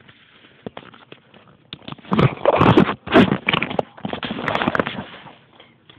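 Objects being handled close to the microphone: about three seconds of rustling and clattering, with sharp clicks and knocks, starting about two seconds in.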